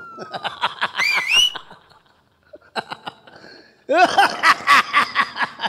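A man laughing in two bouts. The second bout, starting about four seconds in, is the louder, a quick run of ha-ha pulses.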